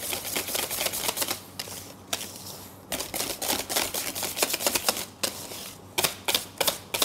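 Wire balloon whisk striking the sides of a stainless steel bowl while beating raspberry mousse, a fast run of sharp metallic clicks. The strokes ease off briefly about two seconds in and come quickly again near the end.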